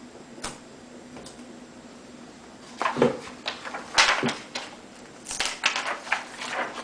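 Protective plastic tape being peeled off a new laptop LED screen panel and the plastic handled: several short crackling, rustling bursts with sharp clicks, starting about three seconds in.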